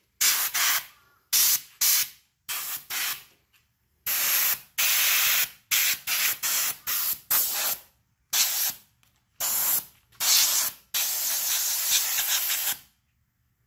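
Compressed-air blow gun on an air compressor hose, hissing in a run of short blasts as it blows dust out of graphics cards. It ends in one longer blast of nearly two seconds.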